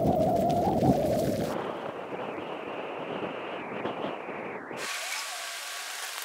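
Wind buffeting a microphone: a rough rumbling noise, loudest in the first second and a half, that changes abruptly twice. A quieter, thinner outdoor ambience follows about five seconds in.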